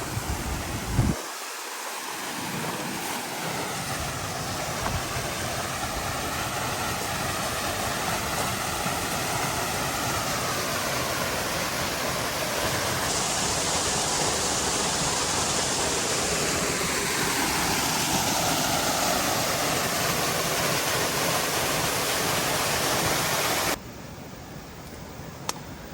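Mountain stream or waterfall water rushing in a steady hiss; about a second in and again near the end the sound changes abruptly, and near the end it drops to a quieter hiss.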